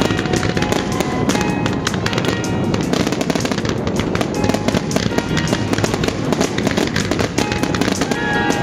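Fireworks display: aerial shells bursting in a dense, continuous string of bangs and crackles.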